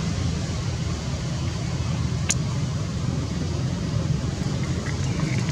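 Steady low rumble with an even hiss of outdoor background noise, and a single sharp click about two seconds in.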